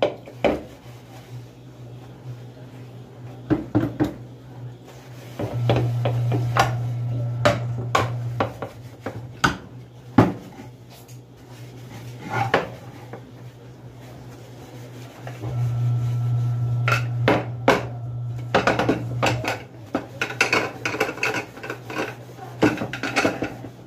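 Washing up at a sink: an aluminium pressure-cooker lid being scrubbed and handled, with repeated metal clanks and knocks of the lid and utensils. A steady low hum comes on twice for a few seconds.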